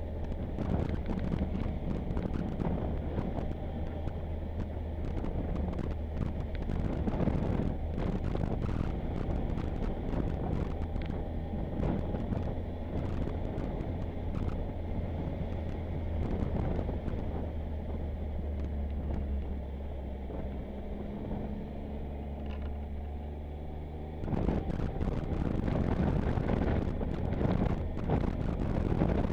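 Motorcycle engine running steadily on the road, under wind rushing over the microphone with frequent short buffeting clicks. Near the end the wind noise jumps suddenly louder.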